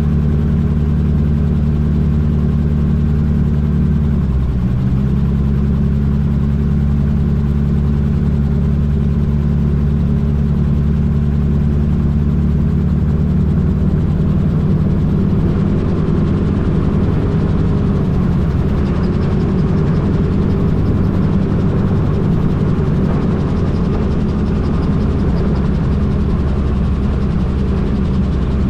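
Magni M16 gyrocopter's engine and pusher propeller running steadily at reduced power while descending to land, the engine note stepping down about four seconds in as power is eased off. A rushing noise grows through the second half as the gyro nears the runway.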